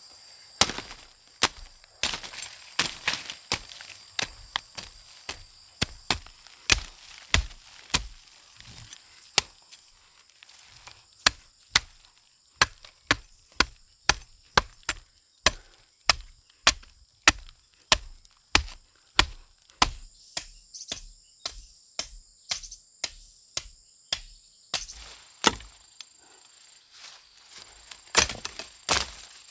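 A long series of chopping strikes with a blade, irregular at first, then a steady rhythm of about two a second. Insects drone steadily in the background.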